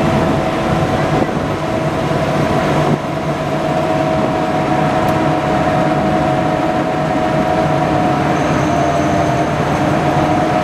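A WWII DUKW amphibious truck's original gasoline engine running steadily as it cruises in the water: a loud, even drone with a steady whining tone on top, mixed with water rushing along the hull.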